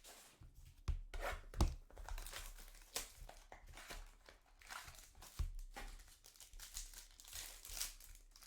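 Plastic card packaging being handled and torn open: irregular crinkling and tearing, with a few sharp knocks about a second in, again just after, and near five and a half seconds.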